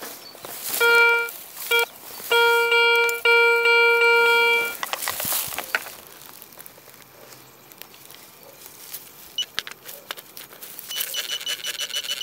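Metal detector sounding on a target: a mid-pitched electronic tone in several bursts from about one to five seconds in, then a rapid high-pitched beeping near the end. Rustling and knocks come from the coil brushing through grass.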